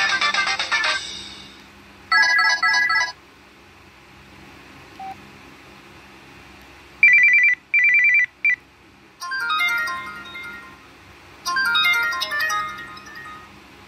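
Samsung Contour 2 phone playing its built-in ringtones through its speaker, one short preview after another, each cut off after a second or two. A melody fades out, then comes a chime, then a trilling telephone ring in two bursts and a short third, then two brief melodic tunes.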